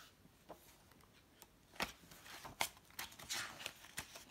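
Faint rustling and several sharp clicks of a children's book's paper pages being handled and turned, mostly in the second half.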